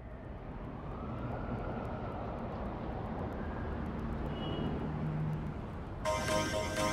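Steady rumbling outdoor noise from a fireworks display, fading in at the start, with faint crackling and no loud bangs. About six seconds in, a pop song with a string intro cuts in abruptly.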